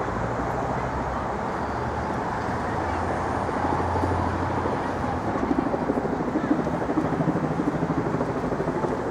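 Busy city street traffic: a steady rumble of passing vehicle engines, louder and wavering in the second half.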